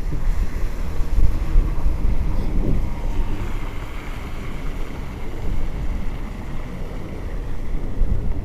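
Wind buffeting a body-worn microphone as a low, uneven rumble, with street traffic going by on a main road; a vehicle swells past in the middle.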